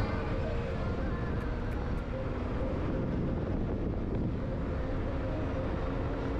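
A car driving at speed: steady road and engine noise, strongest at the low end.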